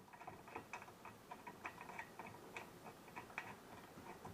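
Faint, irregular small clicks and ticks, several a second, from a short screw and the chair leg being handled as the screw is started by hand.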